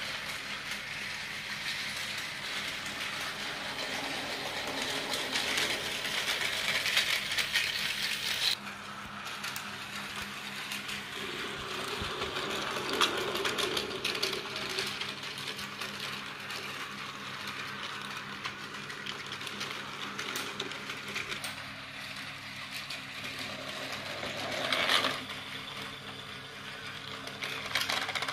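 Battery-powered Tomy toy trains running on blue plastic track: small motors whirring and wheels rattling over the plastic rails and joints, a steady mechanical clatter. The sound changes abruptly about a third of the way in.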